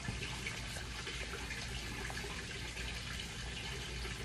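Steady, even background hiss like running water, with a low hum and a few faint small ticks.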